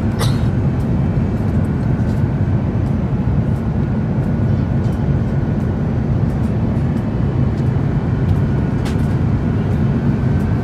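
Steady, deep cabin noise of a passenger airliner in flight, shortly after takeoff: engine and airflow noise with no change through the whole stretch.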